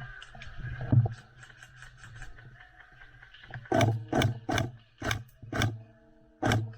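Airsoft gun shots fired one at a time, six sharp cracks roughly half a second apart, starting a little past halfway. A single heavier knock comes about a second in.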